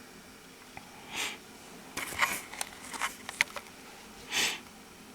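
Two short sniffs or breaths close to the microphone, about a second in and again near the end, with a scatter of light clicks and taps between them.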